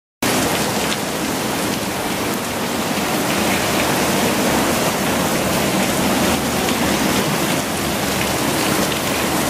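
Heavy rain pouring down onto a paved patio in a thunderstorm: a steady, dense hiss of rain on hard surfaces.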